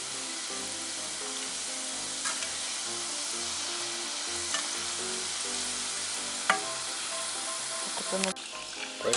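Strips of chak-chak dough deep-frying in hot oil in a stainless steel pot: a steady sizzle, with a few light knocks as a metal slotted spoon stirs them. The sizzle cuts off sharply near the end.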